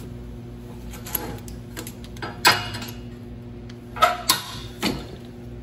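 A few sharp knocks and clatters of metal tools being handled on a steel welding table, the loudest about two and a half seconds in, over a steady low hum.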